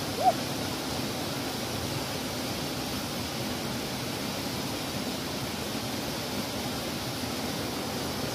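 Steady rush of a shallow river running over rocks and a small cascade. Just after the start, one short pitched call that rises and falls.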